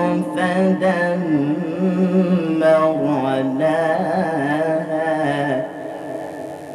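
A male reciter's melodic Quran recitation, drawing out a word in one long, ornamented note that wavers up and down in pitch. The voice fades away about five and a half seconds in.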